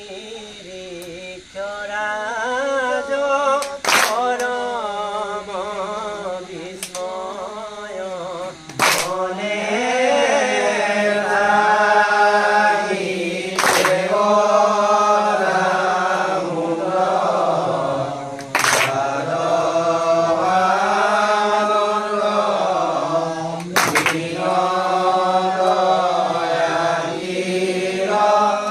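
Assamese nam-prasanga devotional chanting: voices holding long, wavering sung lines, with a sharp percussive strike about every five seconds.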